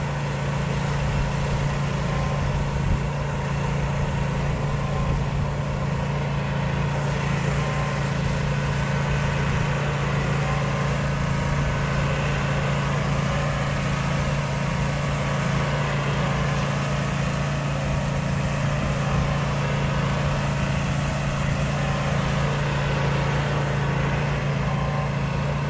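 Pressure washing rig running steadily: a constant engine hum under the even hiss of water spraying from the wand.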